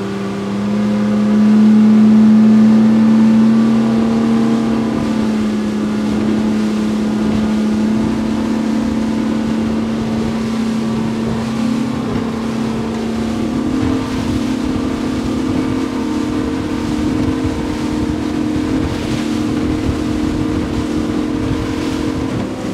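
Bay boat's outboard motor throttling up as the boat gets underway. Its pitch rises over the first couple of seconds, then it runs on at a steady cruising pitch with water and wind noise underneath.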